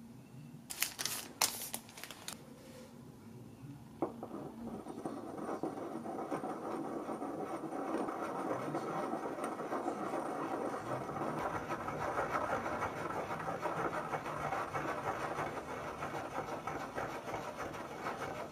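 A Boku Undo Saiboku Aya ink stick is ground in water against a ceramic dish, making a steady scraping that starts about five seconds in and swells slightly. A few sharp clicks come before it.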